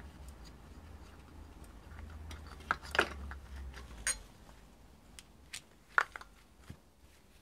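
A handful of sharp metallic clinks and knocks of a steel spanner against the power steering pump and engine, the loudest about three and six seconds in.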